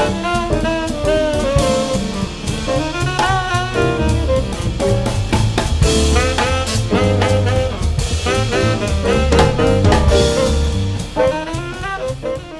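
Jazz background music with a drum kit, a bass line and a sliding lead melody, fading out near the end.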